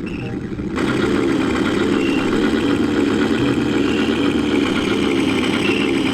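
Heavy tank engine running steadily with a low, uneven rumble, a little quieter for the first second.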